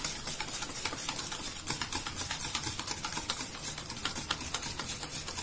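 Wire whisk beating ghee and powdered sugar in a steel bowl, its wires clicking rapidly and steadily against the metal as the mixture is creamed until fluffy.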